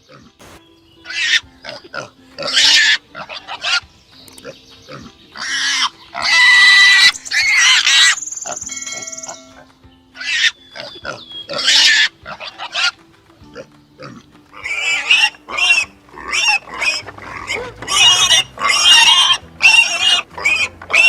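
Pigs squealing in a string of short bursts, coming thick and fast in the last several seconds.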